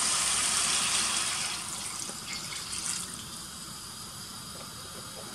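Water poured from a plastic measuring jug into a stew pot of browned beef cubes, splashing. The stream is loudest in the first second and a half, then eases to a quieter, steady pour.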